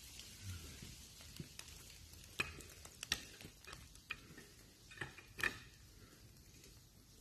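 Faint, scattered sharp clicks and snaps, about half a dozen, the loudest about two and a half and five and a half seconds in.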